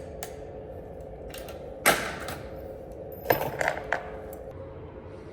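Handling noises: a sharp clatter about two seconds in, then a quick run of clicks and knocks a second and a half later, over a steady electrical hum.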